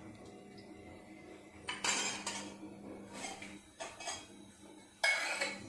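A stainless-steel ladle knocks and scrapes against a steel oil container and a steel kadai as oil is ladled into the pan. There are a few separate clatters, the loudest about five seconds in.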